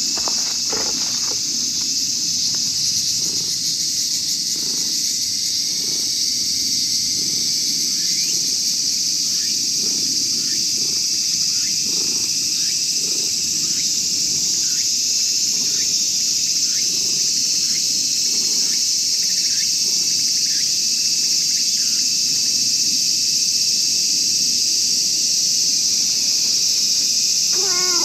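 Steady high-pitched drone of insects, with a tabby cat meowing once right at the end.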